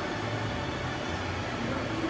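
Steady mechanical running noise of a CNC vertical machining center, a constant low hum with faint steady tones above it.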